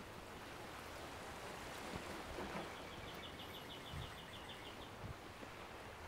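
Faint, steady wash of ocean surf from a recorded waves backing track, with a short run of rapid high ticks about midway.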